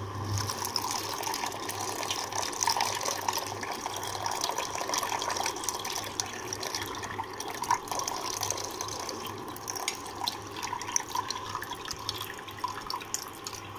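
Milk poured in a steady thin stream into a steel saucepan of hot tea water, splashing and bubbling continuously, with a steady low hum underneath.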